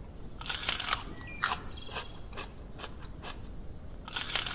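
Cartoon chewing and crunching sound effects of dogs biting into food: a flurry of crunchy bites about half a second in, single bites roughly every half second after, and another flurry near the end.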